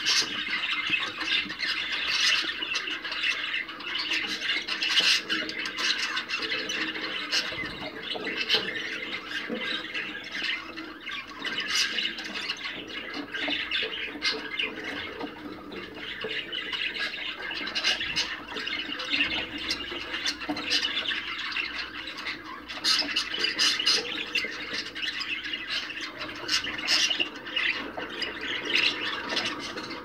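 A flock of budgerigars chattering all at once: a steady stream of overlapping squawks, chirps and warbles.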